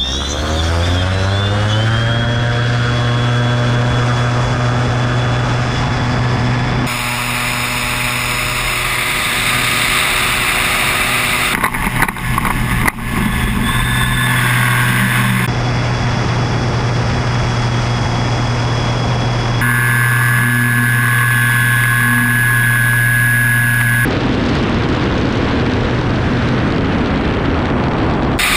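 Geiger HPD20 electric motor and propeller of an ANT-E trike spinning up, the pitch rising over about two seconds. It then holds a steady hum through the takeoff and climb, with wind rushing past. The sound changes abruptly several times.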